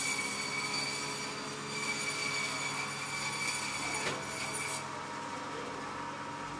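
Butcher Boy meat band saw splitting a carcass down the middle. The blade gives a high, steady whine while it cuts through the meat and bone, which stops about five seconds in. The saw's motor keeps running with a lower hum after that.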